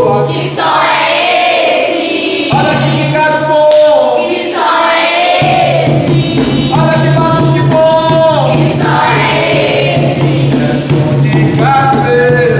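Capoeira song: a group of voices singing repeated melodic phrases over percussion accompaniment.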